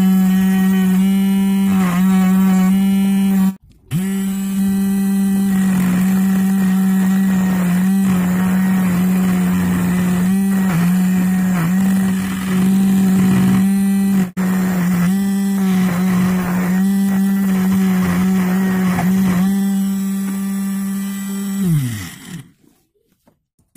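Small electric motor spinning a disc on its shaft with a steady hum. Its pitch dips briefly several times, with scraping, as a tool is pressed against the shaft and disc. Near the end it is switched off and its pitch falls as it winds down to a stop.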